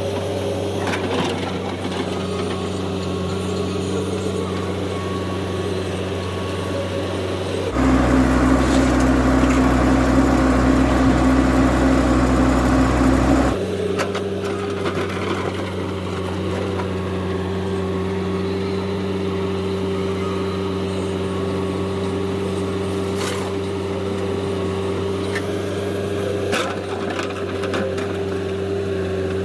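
Heavy diesel machinery engine running at a steady speed. About eight seconds in, a louder, deeper engine sound abruptly takes over for roughly six seconds, then cuts back just as suddenly.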